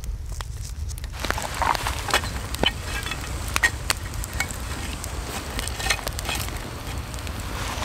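Brook trout sizzling in a frying pan over a wood campfire, with sharp crackles and pops from the burning logs, starting about a second in.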